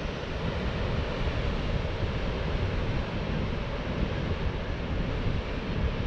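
Strong wind buffeting the microphone, a steady rumbling rush, with ocean surf breaking against the cliffs below.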